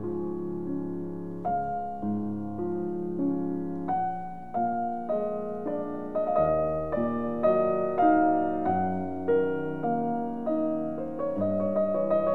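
Background piano music: a gentle piece of struck notes over chords, about two or three notes a second.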